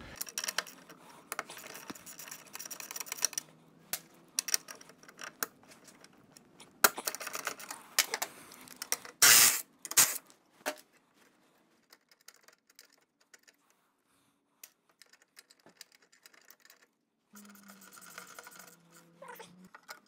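Irregular metallic clicks and clinks of hand tools and bolts being worked on a motorcycle's chrome saddlebag and backrest mounting hardware, with two louder clatters about nine and ten seconds in.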